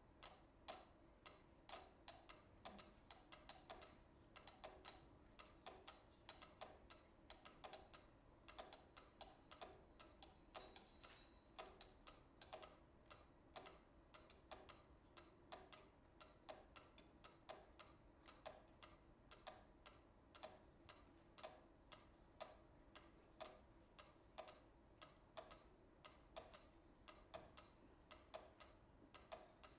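Several mechanical pyramid metronomes ticking at different tempos at once, their clicks overlapping in an uneven, shifting pattern.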